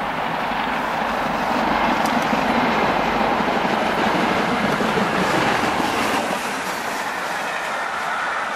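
A BR Standard Class 7 'Britannia' Pacific steam locomotive, a two-cylinder 4-6-2, passes at speed with a steady rush of sound. It is loudest from about two to five seconds in as the engine goes by, then eases slightly as its coaches roll past on the rails.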